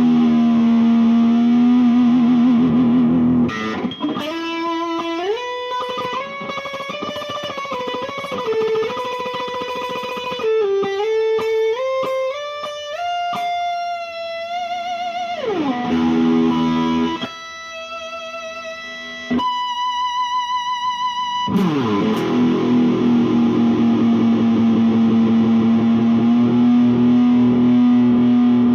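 IYV ILP 400 FR electric guitar played through an amp, its Floyd Rose tremolo bar swooping the pitch of held notes up and down: sliding rises, dives and a wavering vibrato. Near the end a long low note rings with a slight wobble.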